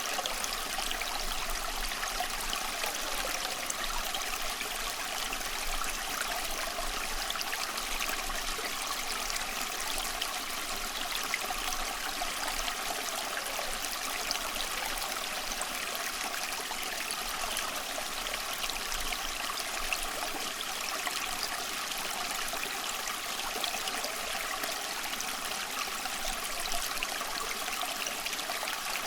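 Flowing water, a steady rush and trickle with many small splashes and no change in level.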